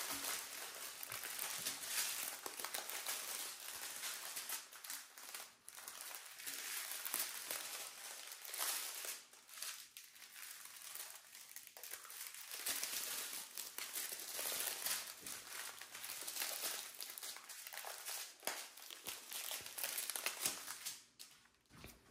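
Diamond-painting kit packaging crinkling and crackling as it is handled and opened, a continuous irregular rustle that thins out near the end.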